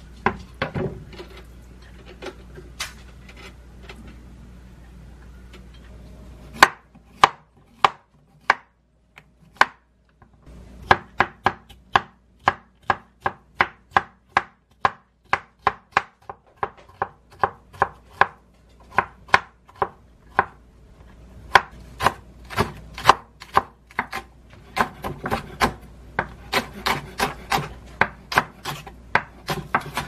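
Knife chopping vegetables on a wooden cutting board, slicing Korean zucchini into thin strips. It is a long run of sharp, even knife strikes, about two to three a second, starting about six seconds in after a few scattered knocks.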